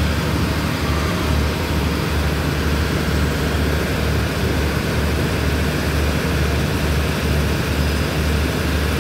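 Diesel engine of a stationary passenger train running at idle: a steady low drone with a slight regular pulse.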